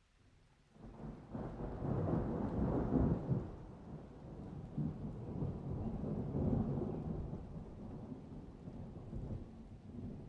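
A low rolling rumble that starts suddenly about a second in, is loudest over the next few seconds, swells again midway, then slowly dies away.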